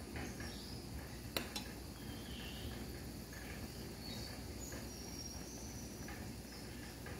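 Pot of chicken soup boiling on a gas stove with a low steady bubbling, and a metal ladle clinking once against the pot about a second and a half in.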